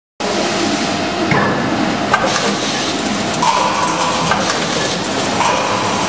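OMAS automatic clamp-making machine running, forming steel strip into natural gas pipe clamps: a steady mechanical clatter with a sharper clank about once a second.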